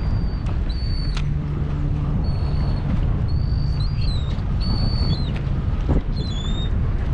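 Wind buffeting the action camera's microphone over the low, steady hum of a fishing party boat's engine, with short high-pitched squeaks coming every second or so.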